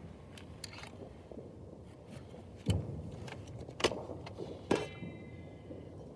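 Fireworks going off around the neighbourhood: scattered crackles over a constant low rumble, with three loud bangs about a second apart in the middle. A short high whine follows the last bang.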